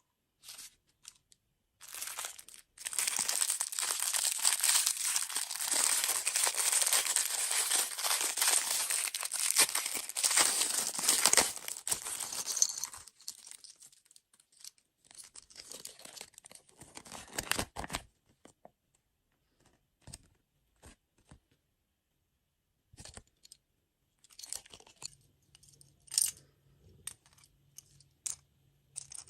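Packaging being torn open and crinkled: a dense rustle lasting about ten seconds, followed by scattered small clicks and taps.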